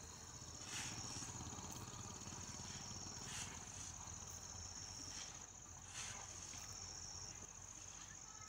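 Steady high-pitched trilling of an insect chorus, with a few soft swishing noises about every two to three seconds.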